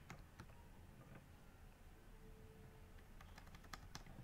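Faint computer keyboard keystrokes: a few scattered clicks, then a quick run of several near the end.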